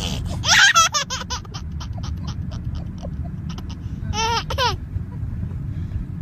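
A young child laughing: a quick run of high-pitched giggles about half a second in, then a second short bout of laughter around four seconds in, over a steady low rumble.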